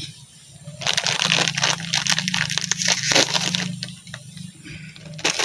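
Plastic ciki snack packet being torn open and handled, a dense run of sharp crinkles and crackles.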